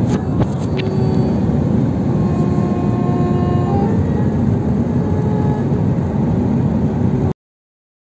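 Steady low rumble of a car driving along the road, from the engine and tyres; it cuts off suddenly about seven seconds in.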